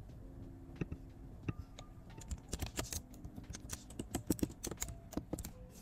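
Typing on a computer keyboard: irregular keystroke clicks, a few scattered at first, then quicker runs of keys from about two seconds in.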